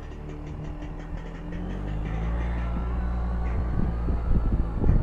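Suzuki Burgman 650 maxi-scooter with its parallel-twin engine under way, heard from a helmet camera as a low rumble of engine and riding noise. The rumble grows louder and turns gusty near the end.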